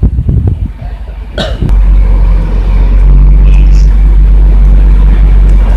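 A self-loader truck's diesel engine running steadily and loudly, powering the truck-mounted crane's hydraulics as it lifts a silo. A sharp knock sounds about a second and a half in, just as the steady rumble begins.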